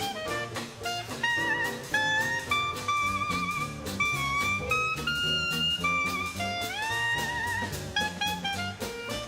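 Jazz instrumental music: a horn lead plays held notes with vibrato, scooping up into a long note about two-thirds of the way through, over a walking bass line and drums.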